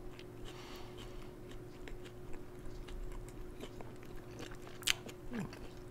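Faint chewing of flaky samsa pastry close to the microphone, with small scattered mouth clicks and one sharper click about five seconds in.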